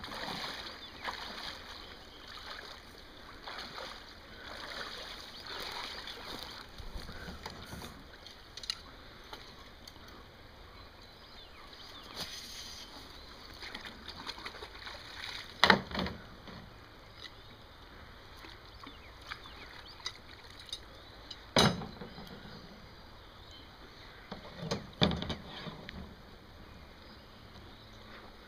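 Waders sloshing through shallow creek water as a man wades and works beside a small boat, with three sharp knocks about 16, 22 and 25 seconds in, the first the loudest.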